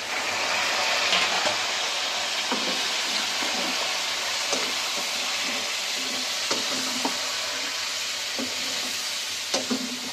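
Quartered tomatoes dropped into hot ghee over fried mutton in a non-stick wok, setting off a sizzle that starts suddenly, is loudest in the first second or two and then holds steady. A slotted metal spatula clicks and scrapes against the pan now and then as the pieces are stirred.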